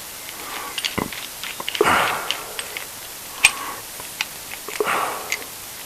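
Scattered small clicks and light knocks from a chisel being handled and slid into a honing guide, with two short soft rushing swells between them.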